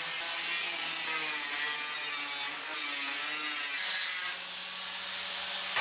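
Angle grinder with a cutting disc slicing through a sheet-steel shelf panel, a loud, steady grinding whine. A little past four seconds in the cut breaks through and the sound drops, the grinder running on more quietly with no load.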